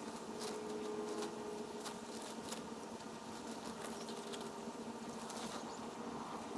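Tent fabric rustling and crinkling in irregular bursts as the tent is folded up and pressed flat to push the air out.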